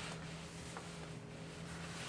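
Quiet room tone with a steady low hum, and one faint click a little under a second in.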